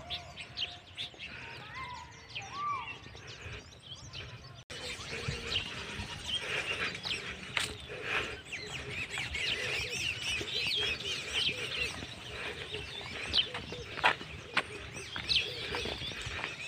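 Small birds chirping and calling outdoors, many short chirps overlapping, growing busier from about five seconds in.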